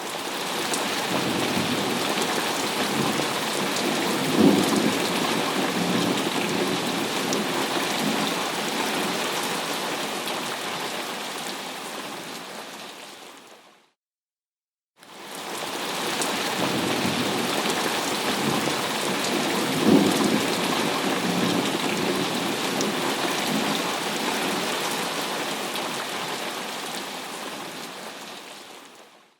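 Thunderstorm: steady heavy rain with a low rumble of thunder that swells about four seconds in. The same stretch of about 14 seconds plays twice, each time fading in and out with a second of silence between.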